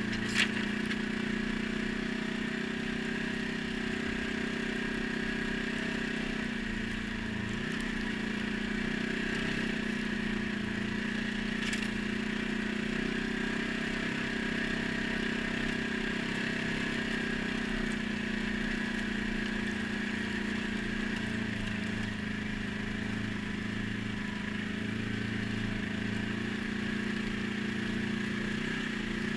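ATV engine running at a steady, even speed, with one sharp click about half a second in.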